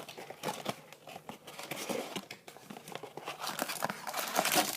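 Crinkling and rustling of wrapped trading card packs being handled and pulled out of a cardboard blaster box, in irregular bursts that get busier and louder near the end.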